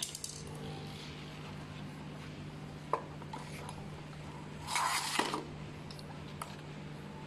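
Small hard parts being handled: a sharp click about three seconds in and a short scraping rustle around five seconds in, over a steady low hum.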